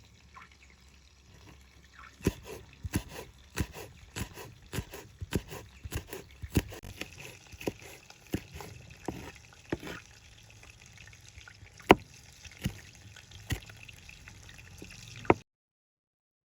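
A series of irregular sharp clicks and knocks of hands working with kitchen utensils and dishes, over a faint trickle of liquid; a couple of louder knocks near the end, then the sound cuts off suddenly.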